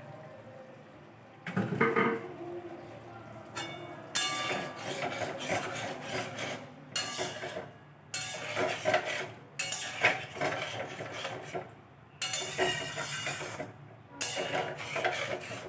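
Metal spatula stirring and scraping vegetables in an aluminium kadai, in repeated bouts of scraping with light clinks against the pan.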